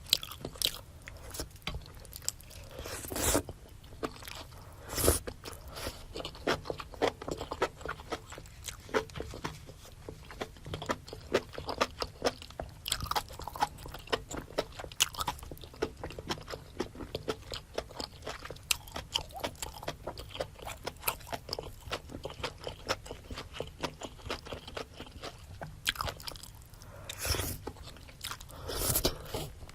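Close-miked chewing and biting of a spicy seafood boil with rice cake, octopus and shrimp: rapid wet smacking clicks, with a few louder bites and crunches, several near the start and two near the end.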